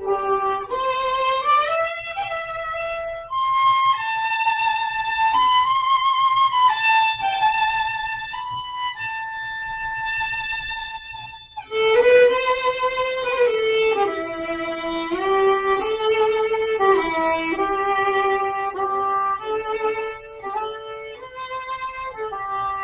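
Violin playing a slow melody of long held notes, breaking off briefly about halfway through before going on.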